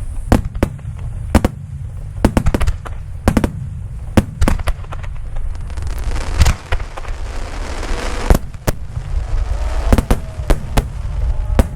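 Aerial fireworks shells bursting in quick succession, sharp bangs over a low rumble, with a dense hissing crackle about six to eight seconds in.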